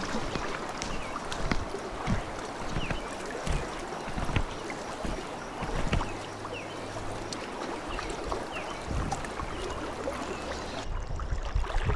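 Creek water running and rippling steadily, with scattered small ticks and knocks.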